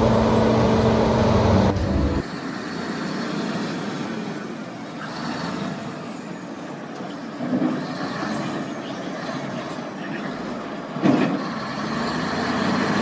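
Heavy construction machinery: a diesel engine running steadily, then, after an abrupt change about two seconds in, quieter mechanical working noise with a sharp knock midway and a louder one near the end.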